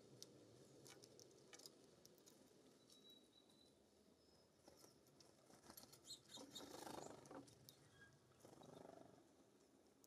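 Faint sounds of small songbirds at seed feeders: scattered light clicks and taps, a brief rustling burst about six to seven seconds in, a softer one near the end, and a faint thin high note about three seconds in.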